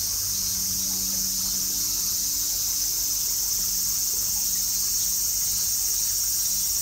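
Steady, high-pitched drone of a summer insect chorus, with a faint low hum underneath.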